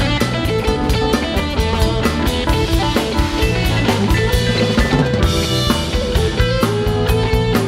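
Live rock band playing an instrumental passage: a drum kit keeps a steady beat under electric guitars, bass and keyboards.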